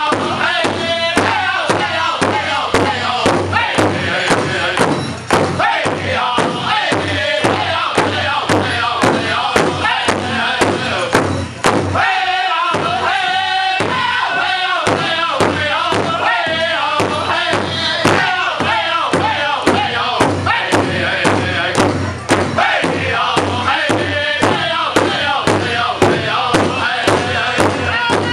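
Powwow drum group: several men beating a large shared hide drum in a steady, even beat while singing together. The drumbeats thin out for a couple of seconds about halfway while the singing carries on.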